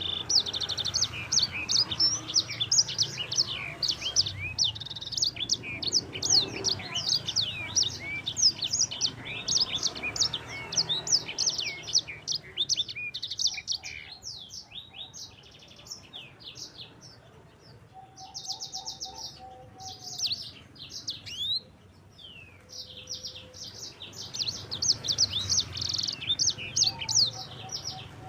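A sanger songbird singing a fast, continuous rolling song of quick high chirps and trills. The song thins out in the middle, with a short buzzing trill and a few lower whistles about two-thirds through, and picks up densely again near the end.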